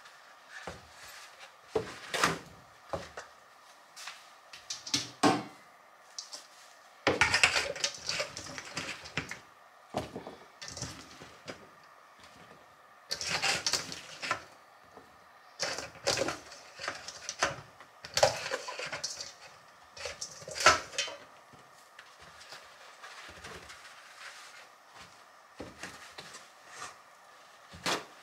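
Intermittent kitchen handling sounds: knocks and clinks from a metal colander and rustling of paper towels as sliced yellow squash is pressed and laid out to drain, with a few longer rustling stretches of a second or two.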